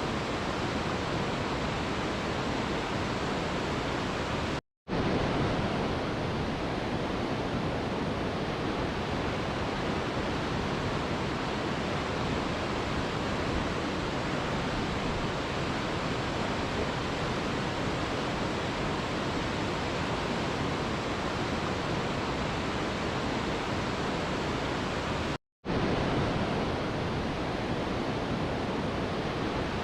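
Waterfall rushing in a steady, even roar of falling water that cuts out to silence for a split second twice, about five seconds in and again near the end.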